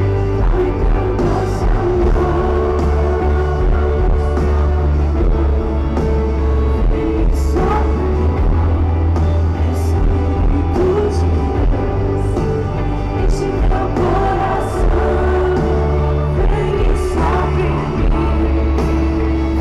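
Live gospel worship song played over a stadium sound system: a band with a heavy, booming bass and sustained chords, cymbal hits every second or two, and singing.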